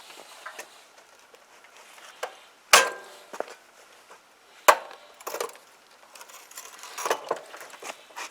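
Irregular clunks and clatter of things being handled and shifted in a workshop, with two sharp knocks about three and five seconds in.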